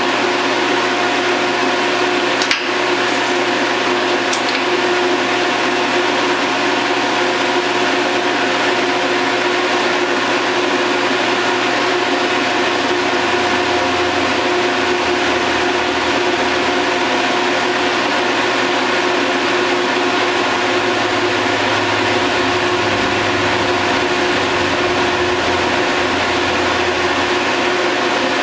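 Steady electrical hum with an even hiss from the welding shop, unchanged throughout, with one sharp click about two and a half seconds in.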